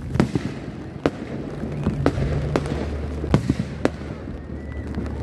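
Aerial firework shells bursting in a display: about six sharp bangs, half a second to a second apart, over a low rumble.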